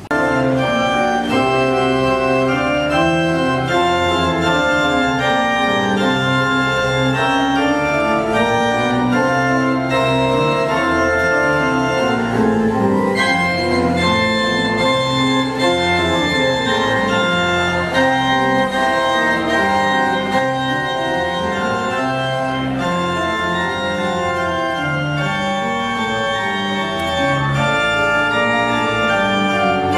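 Pipe organ playing loud, sustained full chords, with a bass line moving underneath that is played on the pedalboard.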